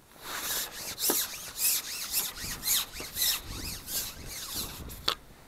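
A carbon fishing pole being shipped back hand over hand after a strike, the pole rubbing and rasping as it slides back in repeated strokes, two or three a second. A sharp click sounds about five seconds in.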